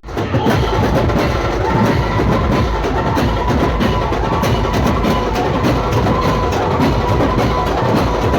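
Loud procession band music driven by dense, busy drumming, with a held melodic note over it from about two seconds in; it starts abruptly after a brief break.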